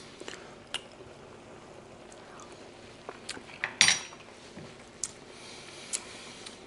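Scattered sharp clinks and knocks of kitchen utensils and cookware, the loudest a quick cluster about four seconds in.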